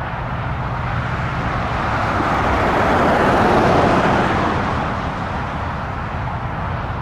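Twin-engine business jet rolling out on the runway after touchdown, its engines making a steady rushing noise that swells to its loudest about halfway through, then eases off.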